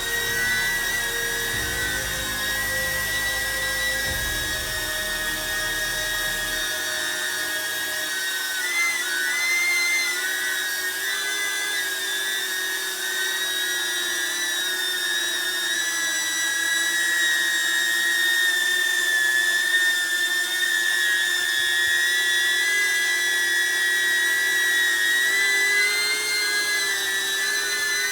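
DJI Neo mini drone hovering: a steady high-pitched propeller and motor whine made of several tones. The pitch wavers briefly about nine seconds in and again near the end as the motors change speed.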